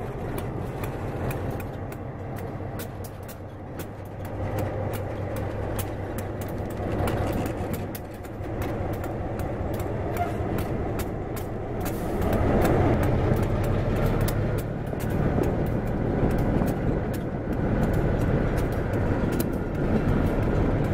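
Diesel engines of two Morristown & Erie switcher locomotives, an EMD SW1500 and a second unit, running with a steady low rumble as they roll slowly past with a passenger coach. The sound grows louder about twelve seconds in as the second locomotive comes close, with light clicking throughout.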